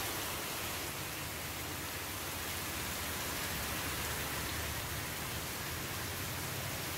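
Heavy rain pouring down on streets and roofs, a steady hiss.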